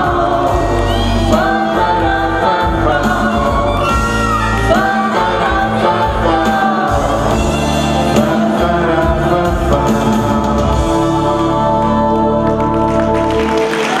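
Male and female duet singing a pop ballad into microphones over instrumental accompaniment with a steady bass. The music ends just before the close.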